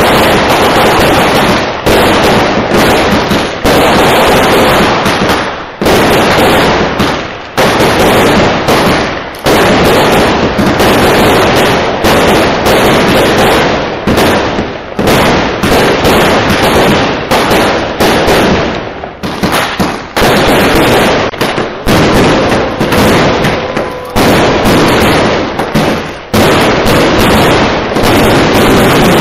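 Loud, continuous barrage of fireworks explosions, the bangs following so closely that they run together, with short lulls every second or two.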